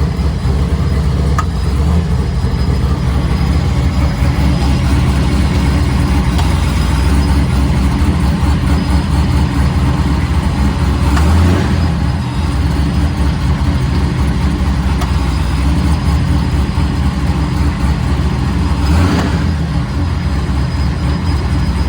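Fifth-generation Camaro SS V8 running with a steady low rumble of engine and drivetrain, swelling briefly about halfway through and again near the end.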